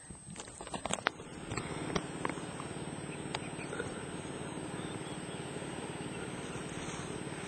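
A few clicks and knocks, then from about a second and a half in a steady rough wash of choppy sea water lapping against a stitch-and-glue kayak hull.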